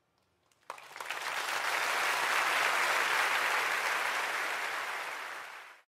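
Audience applause from a live concert recording, starting about a second in, swelling quickly and then cut off abruptly near the end.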